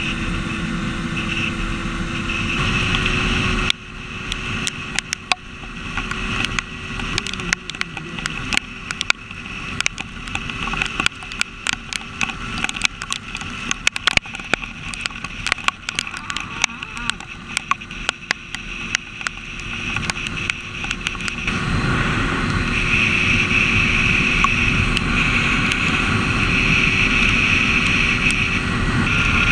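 Motorcycle engine running under wind noise on a helmet or bike-mounted camera. From about four seconds in the wind eases and many sharp, irregular taps of raindrops strike the camera. Near twenty seconds the wind noise builds again as speed picks up.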